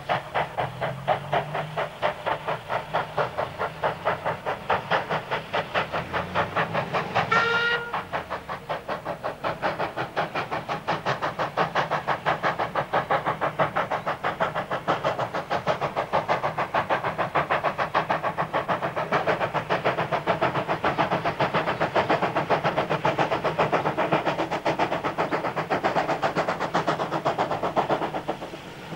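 Queensland Rail C17-class steam locomotive working hard under load, its exhaust beating rapidly and evenly. A short whistle toot sounds about seven seconds in.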